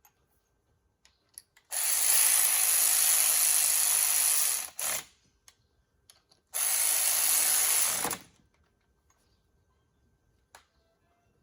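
A power tool runs in two bursts, the first about three seconds long and the second about a second and a half, with a short blip between them. It is running in the U-joint bearing cap bolts on the driveshaft yoke before they are torqued. A few small clicks of tools and parts fall between the bursts.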